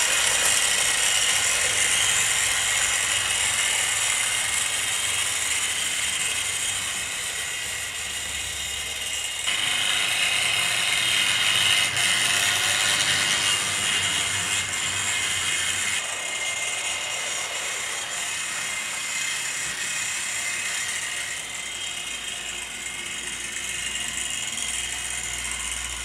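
00 gauge model steam locomotives running round the track: small electric motors whirring and wheels rattling over the rails in a steady mechanical clatter. The level and tone change abruptly twice, about a third of the way in and again past halfway.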